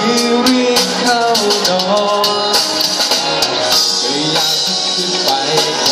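A male singer singing a Thai pop song live into a microphone, over accompanying music with a steady beat, amplified through a PA system.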